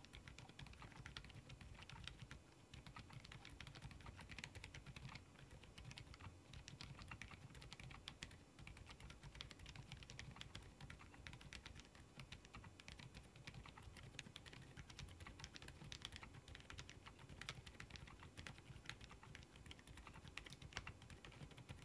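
Typing on an AULA F87 Pro mechanical keyboard fitted with Outemu Silent Peach V2 switches: a steady, continuous run of faint keystroke clicks, kept quiet by the silent switches.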